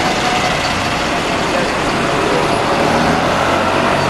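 A single-decker bus passing close by, its engine and tyre noise steady over the sound of road traffic.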